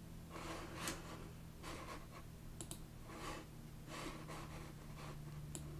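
Faint computer mouse clicks and soft scratchy handling sounds at a desk, over a steady low hum.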